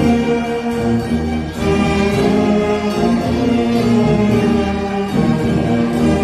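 Wind band playing a march: full sustained brass chords over a bass line, changing chord about a second and a half in and again near the end.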